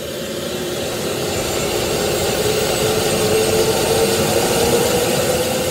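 Helicopter turbine engine spooling up with the rotor starting to turn: a steady engine noise with a faint whine that rises slowly in pitch and grows steadily louder.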